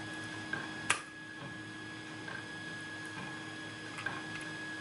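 Small metallic clicks of a lock pick and tension wrench working the pins of an American 1100 padlock, with one sharper click about a second in, as a spool pin is eased through counter-rotation. Under it runs the steady hum of 3D printers.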